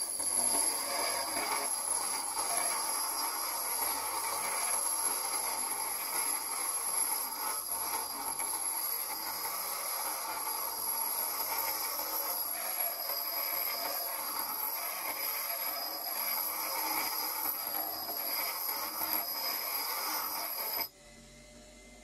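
Homemade power tool driven by an old washing-machine motor, running steadily while working material with a rough, abrasive scraping over a constant high whine. The sound starts and cuts off abruptly.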